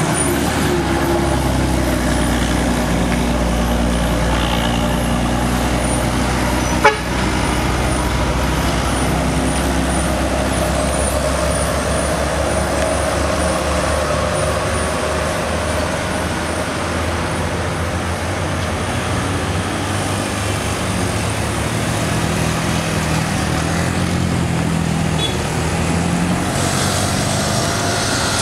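Mountain-road traffic of diesel trucks, a bus and cars passing, heavy engines running steadily, with a horn toot. A single sharp click about seven seconds in.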